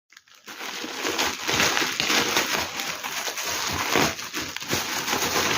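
Plastic packaging rustling and crinkling as a parcel is handled and opened, a dense irregular crackle that starts about half a second in.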